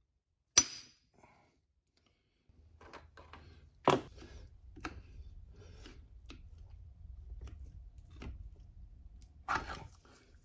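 Metal clinks and knocks as the screws and cover of the clutch's centrifugal oil filter are worked off a small Honda engine: a sharp ringing clink just under a second in, a louder knock about four seconds in, a scatter of lighter taps, and another knock near the end.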